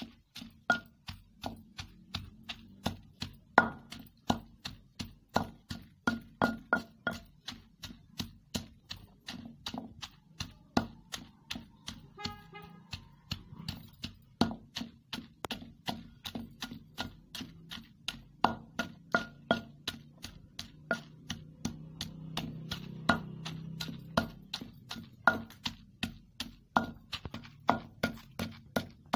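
Wooden pestle pounding in a kundi-danda mortar, about three strikes a second, many with a short ring, as a coarse peanut, tomato and herb chutney is ground.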